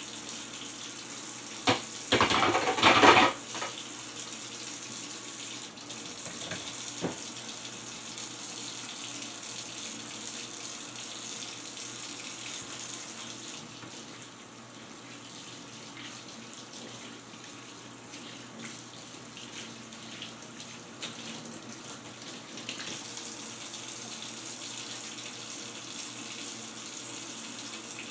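Kitchen faucet running steadily into a stainless steel sink while dishes are rinsed by hand. A brief loud burst comes about two seconds in, with a few faint knocks later.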